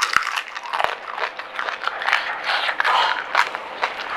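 Mouth-close eating sounds of pani puri: crisp puris crunching and being chewed, with scattered sharp clicks and wet mouth noises.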